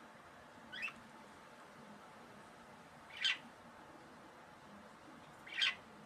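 Budgerigars giving three short, sharp chirps about two and a half seconds apart, the second and third louder than the first.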